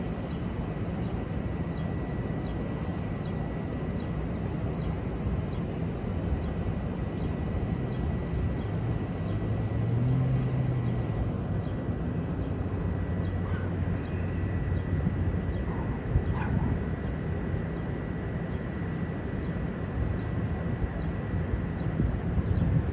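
Steady low outdoor city rumble of distant traffic over the river, with a faint steady high tone. A low engine-like hum swells briefly about ten seconds in, and a few short sharp sounds follow a few seconds later.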